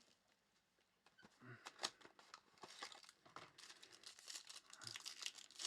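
Trading-card pack wrapper being torn open and crinkled by hand, with rustling and snapping crackles that start about a second in and keep on.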